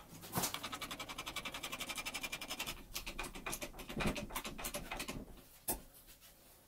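Bottle hydraulic jack being pumped by its lever: a fast, even run of clicks and rasps from the pump, then slower, uneven clicks with a louder knock about four seconds in and a sharp click near the end.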